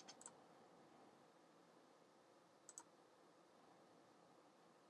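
Near silence: room tone with a few faint clicks from a computer mouse or keyboard, a short cluster at the start and a quick double click about two and a half seconds in.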